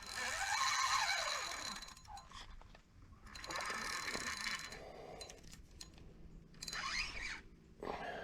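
Fishing reel working against a big hooked gar: a mechanical whirring and clicking in three spells, the longest in the first two seconds.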